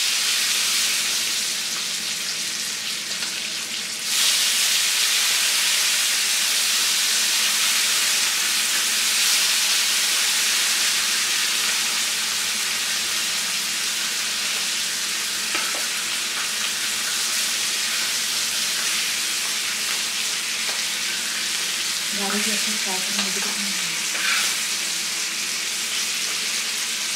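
Pomfret shallow-frying in hot oil on a tawa: a steady sizzle that grows louder about four seconds in, as kokum pulp goes into the hot oil.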